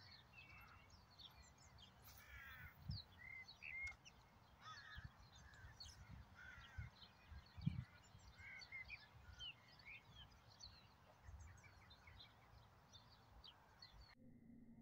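Birds calling: many short, faint chirps and whistles, with a few harsher calls among them, over low rumble and occasional soft low knocks.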